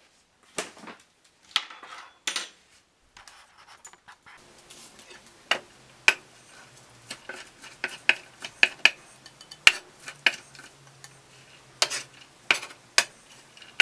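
Kitchen knife chopping raw steak and vegetables on a cutting board: a run of sharp, irregular knocks that come faster near the end.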